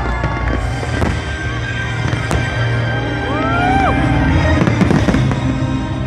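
Fireworks bursting and crackling in quick, irregular pops, over music with a steady bass line.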